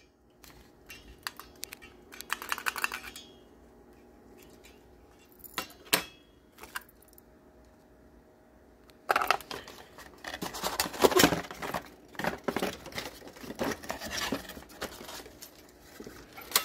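Packaging being handled during an unboxing: short rustles and a few sharp clicks, then steadier rustling and crinkling from about halfway through.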